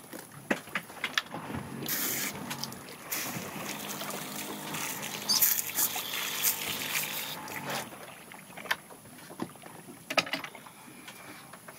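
Sounds aboard a small fishing boat: scattered clicks and knocks, then for several seconds in the middle a steady buzzing hum with a pitched tone, which stops about eight seconds in.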